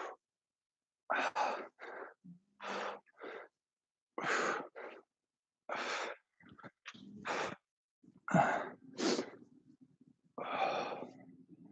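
A man breathing hard from exertion during resistance-band rows, with short forceful exhalations about one or two a second.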